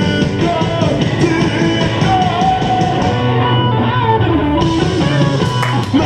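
Rock-style anime song with guitar and singing, played for the dancers and pitched down to a lower key.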